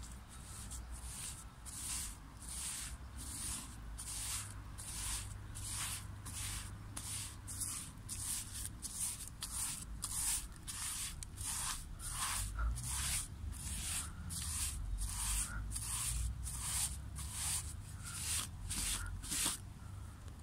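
Paintbrush bristles swishing back and forth over rough wooden fence slats as paint is brushed on, a steady rhythmic scrubbing of about two strokes a second, over a low rumble.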